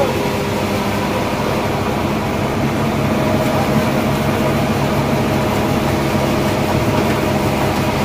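Engine running steadily with a constant, even hum.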